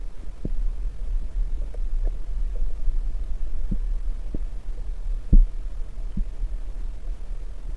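Underwater ambience as heard through a submerged camera: a muffled low rumble of moving water against the housing, with a few faint scattered clicks and one louder soft thump a little past halfway.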